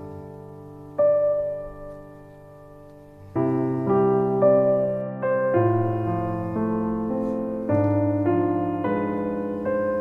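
Background piano music: slow, gentle notes and chords, sparse at first and fuller from a little over three seconds in.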